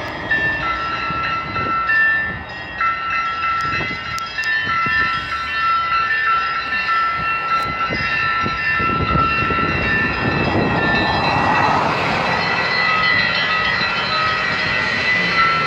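Orthodox church bells ringing a feast-day peal: several bells of different pitches struck in turn, each tone ringing on and overlapping the next. A rushing noise swells under the bells in the second half.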